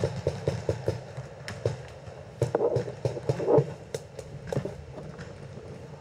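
Paintball markers firing in an exchange of fire: sharp pops, a quick string of about four a second at the start, then scattered shots with a denser, louder flurry in the middle.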